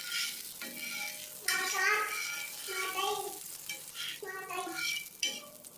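Butter sizzling and bubbling as it melts on a hot dosa tawa, while a spatula scrapes and spreads it across the griddle.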